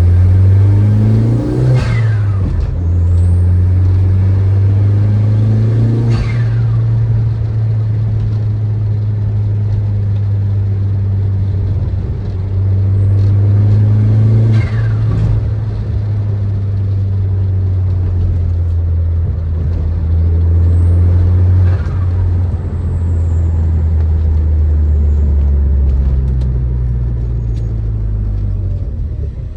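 Turbocharged 1.8-litre 20-valve four-cylinder of a stage 3 Audi A3 with a 3-inch stainless steel exhaust, driving with a deep steady exhaust drone. The engine note shifts about four times as the throttle changes, each time with a short falling sweep in the sound.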